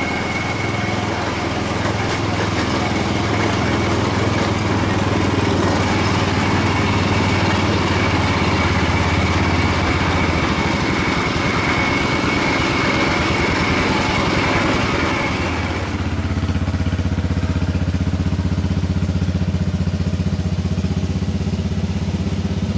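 Riding lawn tractor engine running hard, with a steady high whine over the engine noise. About two-thirds of the way through, the whine and noise drop away and the engine settles to a quieter, even run.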